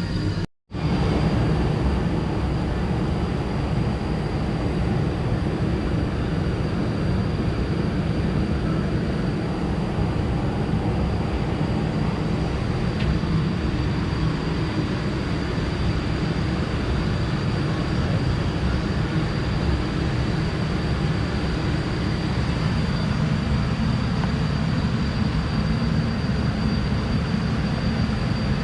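Steady low rumble of a moving vehicle, with a faint steady high-pitched whine over it; the sound drops out completely for a moment about half a second in.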